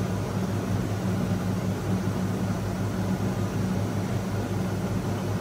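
Steady low hum with a faint even hiss: the room tone of a small clinic room, with no other events.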